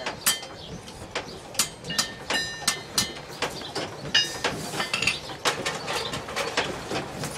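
A blacksmith's hammer striking iron in a steady rhythm of about two to three blows a second, many blows ringing briefly.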